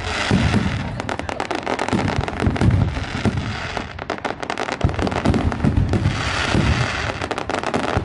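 Aerial fireworks going off in a dense barrage: many shells bursting at once, with a rapid, continuous crackle of countless small pops over repeated deep booms.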